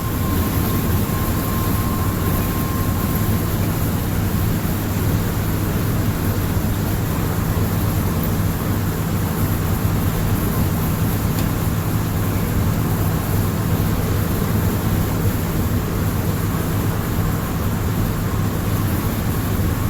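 Steady road and engine noise inside a moving vehicle: an even rushing noise over a low hum, with a faint high tone in the first few seconds.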